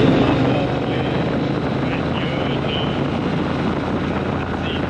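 Triumph Bonneville T120's 1200 cc parallel-twin engine running steadily on the move, with a man's voice faintly singing over it.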